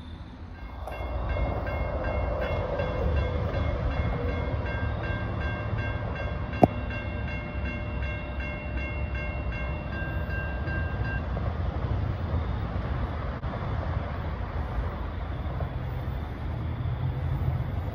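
Railroad grade-crossing warning bells ringing in a steady repeating pattern while the crossing gates move, starting about a second in and stopping about two-thirds of the way through. Underneath runs a low rumble, and a single sharp click comes about a third of the way in.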